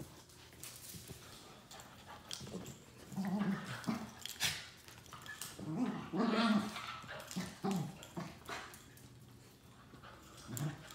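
Two dogs play-fighting: short growling bursts about three seconds in and again around six seconds, between quieter scuffling.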